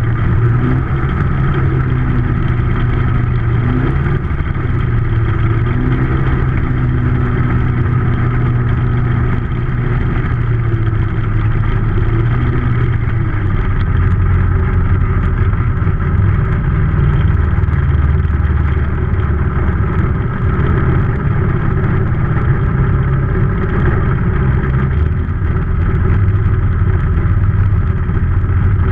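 Ultralight aircraft's engine and propeller running steadily while the plane taxis on a grass strip, the engine speed easing down a little about halfway through and starting to climb right at the end.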